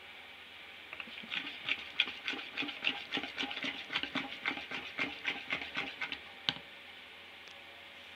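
A spoon stirring a gel-and-oil mixture in a small plastic bowl: quick clicks and scrapes against the bowl at about four a second, ending with a sharper knock about six and a half seconds in.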